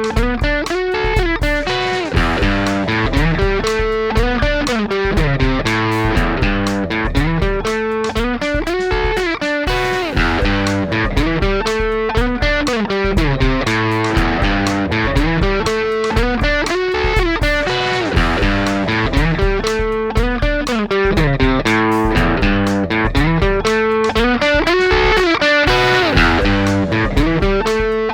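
Electric guitar, a prerecorded part reamped through an Xotic EP Booster pedal into a Vox MV50 AC amp, playing a continuous run of picked notes.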